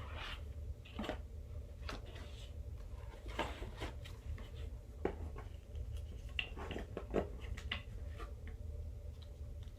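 Handling of a K-pop album's paper inserts: scattered light rustles and small clicks, over a steady low hum.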